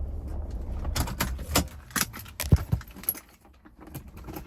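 Keys jingling and clicking and clattering as someone gets out of a parked car, with a car door thudding shut about two and a half seconds in. The low rumble underneath dies away soon after.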